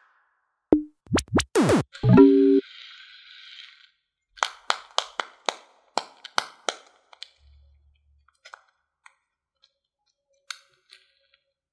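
Silicone bubbles of a pop-it fidget spinner being pressed: a quick run of about nine sharp pops a few seconds in, then a few scattered fainter pops. It opens with a short burst of synthetic sound effects with falling pitch sweeps.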